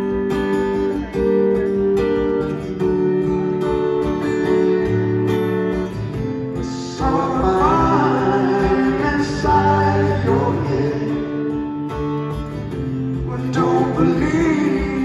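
Two acoustic guitars playing an instrumental passage live in a large arena, with held chords at first. From about seven seconds in the sound grows fuller and busier, with wavering lead lines on top.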